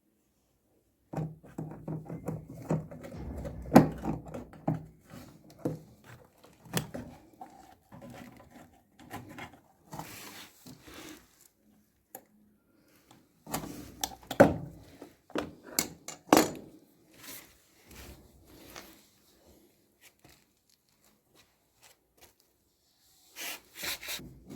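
Irregular knocks, clunks and scrapes of tools and washing-machine parts being handled during repair work, in two busy spells with a quiet stretch near the end.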